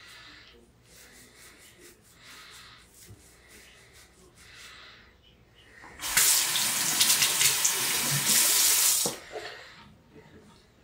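Faint scraping strokes of a razor through lathered stubble, then a bathroom tap runs into the sink for about three seconds from about six seconds in and is shut off.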